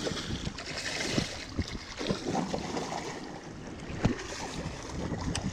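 Wind on the microphone and sea water washing against the jetty rocks, a steady rushing with low rumbling gusts. There is a sharp knock about four seconds in and a faint click near the end.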